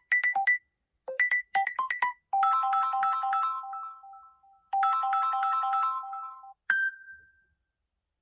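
Samsung Galaxy S23 ringtones: a run of short plucked electronic notes, then a brighter melodic phrase played twice, then a single chime that rings out and fades near the end.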